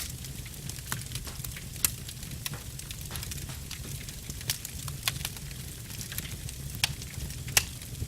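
Wood fire burning in a fireplace: irregular sharp crackles and pops over a steady low rumble, with the loudest pops about two seconds in and near the end.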